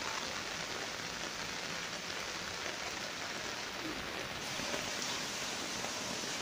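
Steady rain falling on garden plants and grass, an even wash of drops with no pause.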